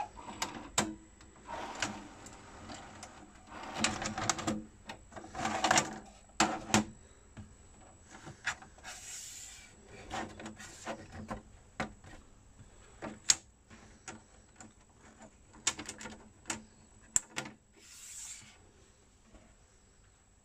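Irregular clicks and knocks from a VHS cassette being handled against an NEC VN-31 video cassette recorder and its front-panel buttons being pressed, with a couple of brief swishes.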